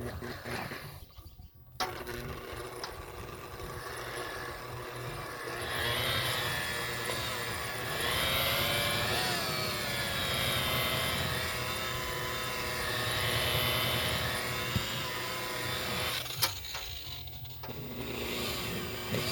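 Electric buffer running with its pad on rubbing compound, cutting oxidized boat gelcoat. The motor whine dips and rises in pitch as the pad is worked under pressure. It starts about two seconds in, stops with a click around 16 s, and starts up again near the end.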